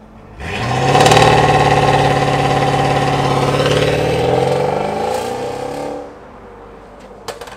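A Mercedes-Benz S550's twin-turbo V8, breathing through catless downpipes with a resonator delete and a Stage 2 tune, accelerating hard away. The loud exhaust note climbs steadily in pitch and then drops off suddenly about six seconds in. A couple of sharp clicks come near the end.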